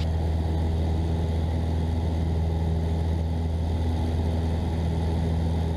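Cessna 172's piston engine and propeller droning steadily in flight, heard inside the cabin: an even, low hum that does not change.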